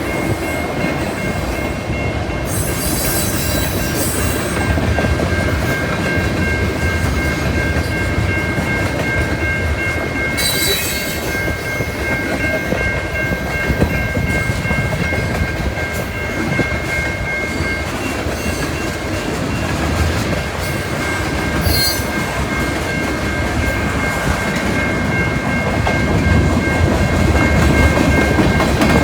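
CN freight train rolling past at speed, its cars running noisily over the rails, with a steady high-pitched wheel squeal running through it.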